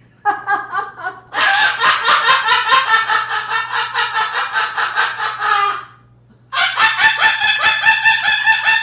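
Pet parrot cackling in rapid, evenly repeated pulses: a short burst at the start, a long run of about four and a half seconds, then after a brief pause another run near the end.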